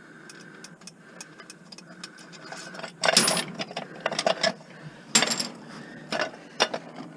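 Metal clicking and clinking, then several short, loud clanks and scrapes from about three seconds in, as a cast aluminum cover is worked loose from a piece of scrap.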